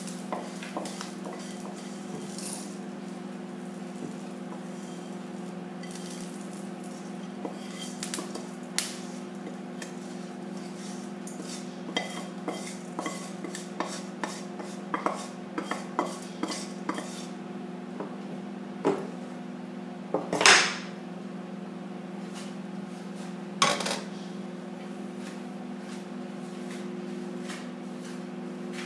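Metal utensils clinking and knocking against pots and pans in scattered short strikes, with a louder half-second clatter about twenty seconds in, over a steady low hum.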